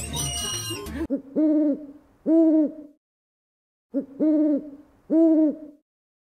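Owl hooting in two bouts, each a short note followed by two longer hoots, with dead silence between; background music stops just before the first bout.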